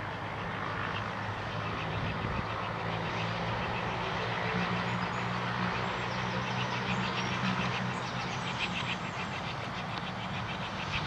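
Steam locomotive approaching with its train: a steady low rumble, with a quick, even rhythm of exhaust beats coming through more clearly from about halfway.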